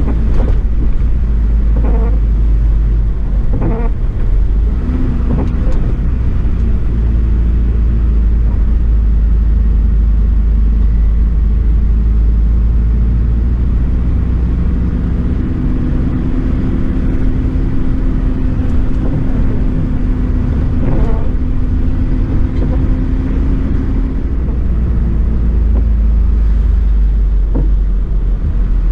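Mercedes-Benz Atego expedition truck's diesel engine running steadily under way, with heavy low rumble and road noise heard from inside the cab. A steady engine hum stands out through the middle, and a few brief knocks come from jolts on the rough, wet road.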